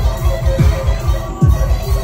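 Dubstep played loud over a club sound system: deep kick drums that drop in pitch, the heaviest about every 0.8 s, over heavy bass.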